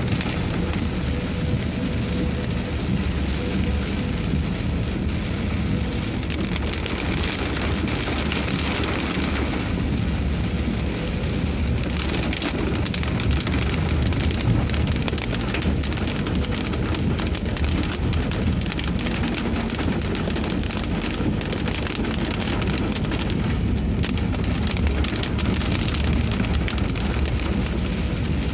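Rain falling on a moving car and on the wet road, heard from inside the car's cabin, with a steady low rumble from the car and its tyres on the wet road.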